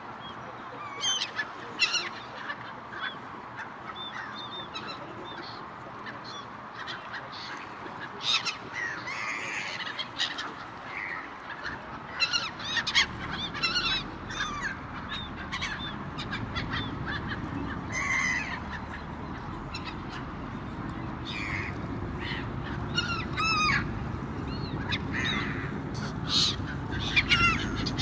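Gulls calling over the water in many short, repeated squawks, some loud, scattered throughout. Under them a low rumble grows from about halfway through.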